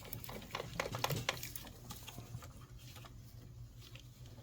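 Light plastic clicks and rattles of ignition coil packs being wiggled in their holes to work them loose, busiest in the first second or so, over a low steady hum.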